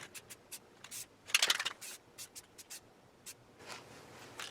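A few light clicks and scrapes of small parts being handled and fitted, with one louder scrape about a second and a half in.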